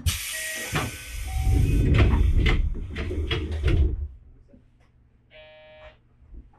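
Train's pneumatic passenger doors working: a sudden hiss of air for about two seconds, then a run of heavy thuds and knocks as the doors slide and close. Near the end comes a short, steady electronic buzzer tone.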